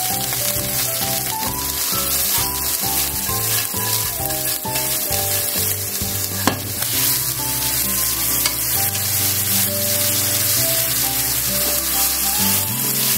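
Chicken thigh pieces and shimeji and maitake mushrooms sizzling steadily in oil in a frying pan over medium heat while being stirred and turned with wooden chopsticks. This is the stir-fry stage where the mushrooms are cooked until they wilt.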